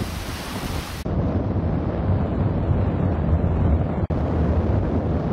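Wind buffeting the camera microphone at height under a parasail: a loud, low rushing noise. The sound turns duller about a second in and drops out for an instant about four seconds in.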